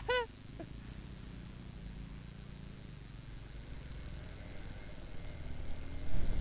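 Vehicle engine and road noise: a steady low rumble while driving, growing louder with some knocks near the end.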